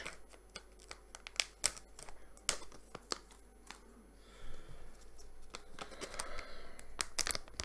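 A sealed chip packet being worked and torn open by hand: scattered sharp crackles and crinkles of the packaging, with a softer stretch of rustling after about four seconds.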